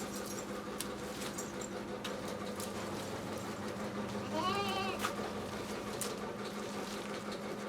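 A goat bleating once, a short wavering call about halfway through, over a steady low hum and a few faint clicks.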